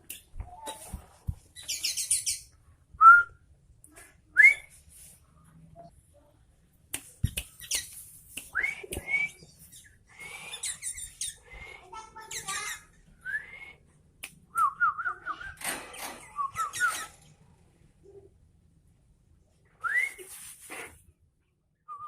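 Sooty-headed bulbul (kutilang) calling: short, clear whistled notes that slide upward, some in quick runs of several, coming in spurts with pauses, mixed with scratchy high chatter.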